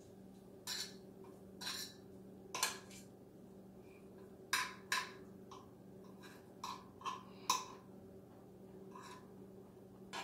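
A metal fork clinking and scraping against a frying pan in short, irregular strokes, about a dozen over the stretch, over a low steady hum.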